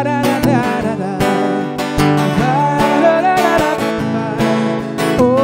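Acoustic guitar strummed steadily, with a man's singing voice holding and bending long notes over it.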